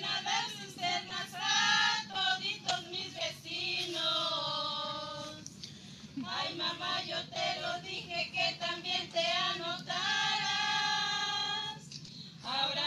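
A group of women singing a song in Spanish together, with long held notes about four and ten seconds in.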